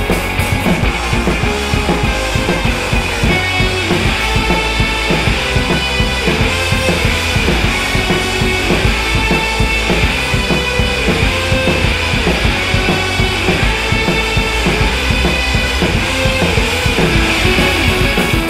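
Rock music with a steady drum beat and electric guitar.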